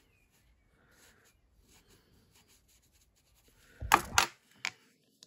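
Faint rustling of hands handling chenille yarn and stuffing. About four seconds in, small metal scissors are set down on a hard tabletop with a couple of sharp clacks, then one more click.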